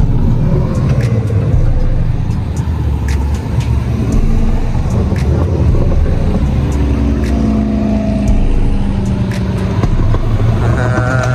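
Cars driving past one after another, their exhausts giving a loud, low rumble, with the engine note gliding up and down about eight seconds in.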